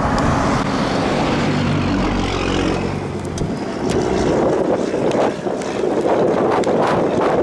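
Hail striking a vehicle: scattered sharp knocks that come thicker in the second half, over a steady rush of wind and vehicle noise.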